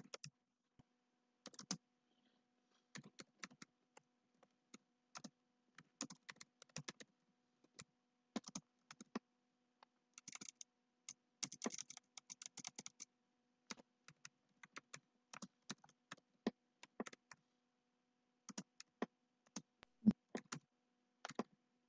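Computer keyboard being typed on: irregular runs of faint key clicks broken by short pauses, over a faint steady low hum.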